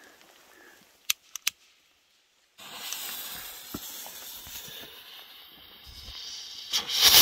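A few sharp clicks, then a firework rocket's fuse hissing and fizzing for several seconds, ending in a loud burst as the rocket fires near the end.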